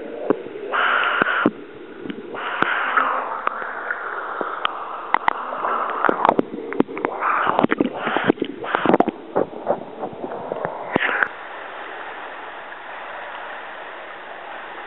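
Pool water splashing and gurgling close to the microphone, which dips in and out of the water beside a swimmer doing front crawl, with irregular bursts and sharp clicks. About 11 seconds in it settles into a steady hiss.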